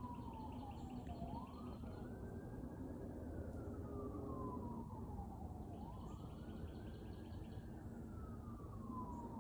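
Faint emergency-vehicle siren wailing, its pitch rising quickly and then falling slowly, about twice over, above a low steady rumble.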